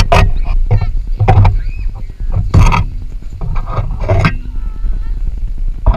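Wind and handling noise on a GoPro's microphone as it is moved over an osprey nest: a steady low rumble broken by several sharp knocks and bumps.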